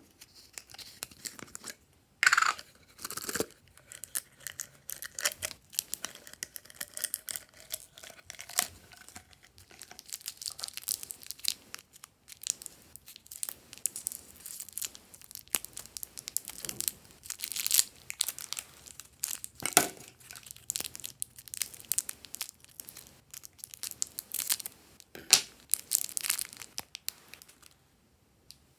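Glossy slime being worked by hand, kneaded, stretched and pressed, making a continuous run of sticky crackling, popping and tearing sounds. A few sharper, louder snaps stand out.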